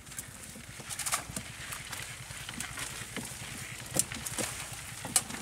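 A net fish trap being handled and shaken out in a wooden boat: irregular wet knocks and clicks of the trap's frame and netting against the boat's planks, with rustling of the net. The sharpest knocks come about four seconds in and again near the end.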